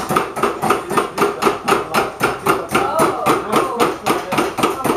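Several metalsmithing hammers striking sheet metal on steel stakes in quick overlapping blows, about four to five a second: metal being formed by anticlastic raising into spiculum bracelets.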